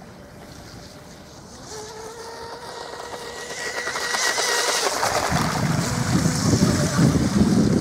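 Mini RC powerboat's brushless electric motor, run on a single-cell LiPo, whining at a steady pitch as the boat speeds across the water, growing louder. About five seconds in, a rough rushing noise joins it.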